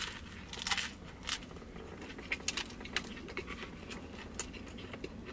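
Chewing a mouthful of bánh mì: a couple of crunches of crusty baguette in the first second, then scattered small wet clicks of chewing.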